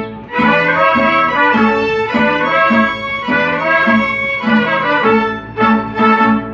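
A mariachi ensemble of trumpets, violins and guitars, including a guitarrón, playing a march together on a steady strummed beat. The brass carries the melody over the strings, with loud accented chords near the end.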